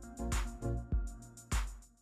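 Background music: an electronic track with a steady drum-machine beat and pitched synth notes.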